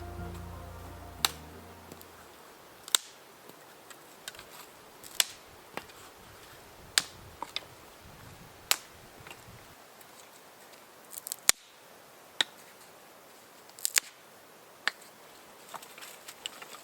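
Background music fading out over the first two seconds, then a series of sharp, short clicks and snaps at irregular intervals, one every second or two.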